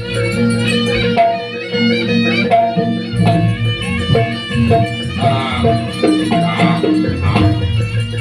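Javanese jaranan–campursari ensemble playing live traditional music: drums and rattling percussion under a wavering melodic line, over sustained low tones.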